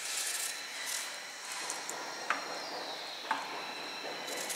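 A knife slicing thin pieces from half an onion held in the hand, with crisp cutting sounds and two light ticks as slices drop into an aluminium baking tray.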